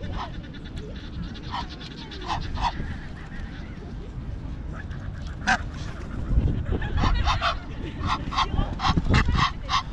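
Egyptian geese giving short, harsh honking calls, a few at first, then in quick, loud series in the last few seconds. A low rumble runs underneath, strongest in the second half.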